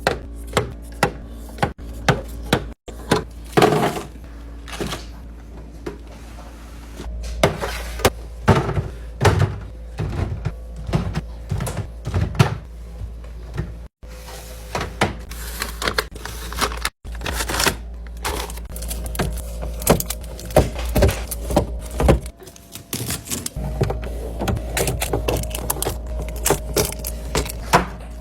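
Restocking ASMR: drinks and packaged snacks being handled and set into a fridge, a busy run of clicks, taps and thunks from plastic, cans and bottles knocking together and onto shelves.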